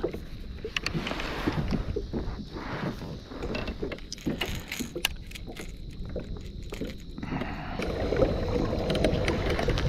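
Water lapping against a kayak's hull with wind on the microphone, a steady low rumble and hiss broken by scattered small clicks and knocks. The rushing grows louder from about seven seconds in.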